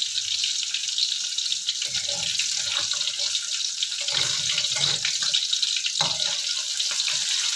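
Red snapper heads sizzling steadily in hot oil in a wok, with a metal spatula scraping and knocking against the pan as it pushes the fish about halfway through and again near the end.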